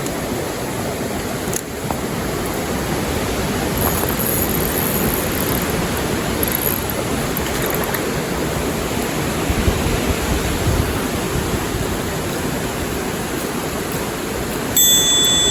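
Rushing water of a small stream, a steady wash of noise. A high steady tone starts near the end.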